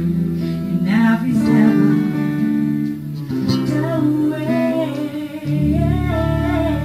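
Live acoustic band playing a song: a woman singing over acoustic guitar and bass guitar.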